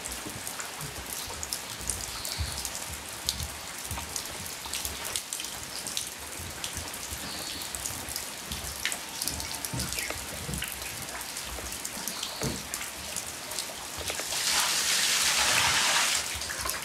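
Steady early-summer rain falling on a garden's leaves, gravel and roofs, with many single drops ticking close by. About fourteen seconds in, a louder, steady rushing hiss rises for about two seconds, then drops back.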